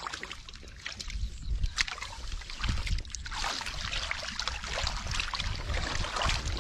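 Hands sloshing and scooping through shallow muddy water, with scattered small splashes and trickles as water is pushed and lifted while groping for catfish in the mud.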